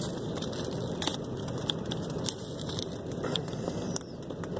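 Cardboard retail box being torn open by hand, with scattered crackling and crinkling of paper and packaging, over a steady low rumble of the car's cabin.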